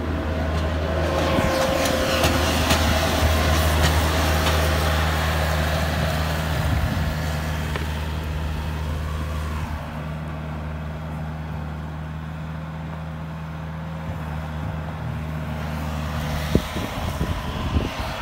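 Skid loader engine running steadily, a little louder a few seconds in. Near the end the engine note changes and a couple of sharp knocks are heard.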